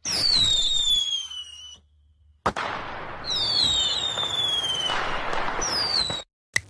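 Fireworks sound effect: whistling rockets, their high whistles falling in pitch over a rushing hiss, a sharp bang about two and a half seconds in, then more falling whistles and hiss until the sound cuts off suddenly near the end.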